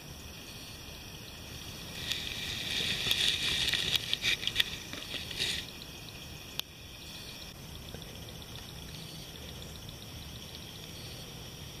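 Water sloshing and trickling: a crackly burst with many small clicks starts about two seconds in and lasts about three and a half seconds, over a steady faint hiss. A single sharp click comes shortly after.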